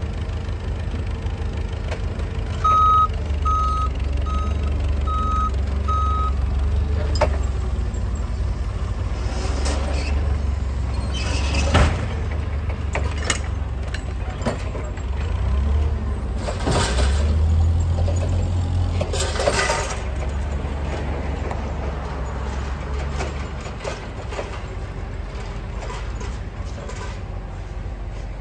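Clark forklift's propane engine running, with its reversing alarm beeping five times a few seconds in. Several short bursts of hiss follow later.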